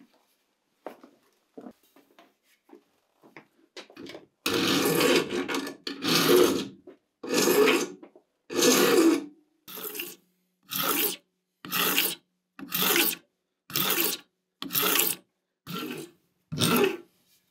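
Long flat hand file pushed in repeated strokes across metal clamped in a bench vise, a rasping scrape on each stroke. After a few faint taps, the filing starts about four seconds in with some long strokes, then settles into shorter strokes at about one a second.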